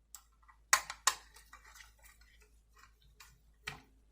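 Small screws being worked back into a die-cast model car's base: a run of light ticks and clicks of metal and plastic, with two sharp clicks about a second in and another near the end.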